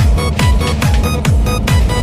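Electronic dance music with a steady four-on-the-floor kick drum, a little over two beats a second.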